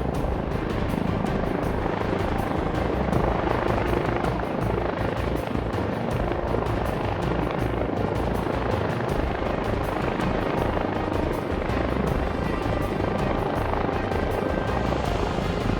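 Yu Xiang F11-S Apache scale RC helicopter's rotors and electric motor whirring steadily in flight, with a fast flutter of blade chop.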